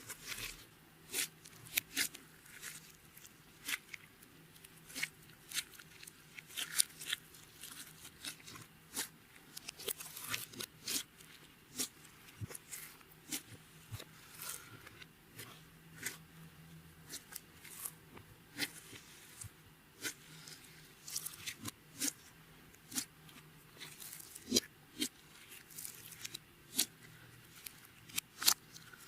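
Clear slime being worked by hand, with irregular sticky clicks and pops, a few a second.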